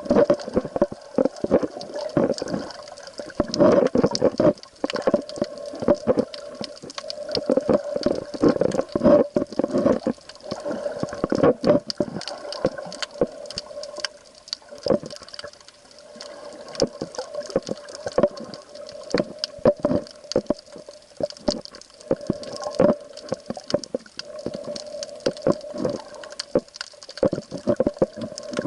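Water sloshing and bubbling around a camera in the sea, with many irregular clicks and crackles over a steady low hum.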